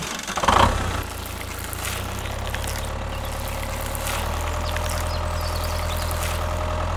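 Tractor engine running steadily with a low, even hum, after a brief louder noise about half a second in.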